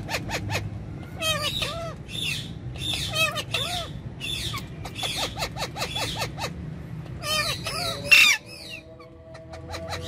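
Indian ringneck and Alexandrine parakeets calling, in quick runs of short squawks and chattering notes, with one loud, harsh squawk about eight seconds in.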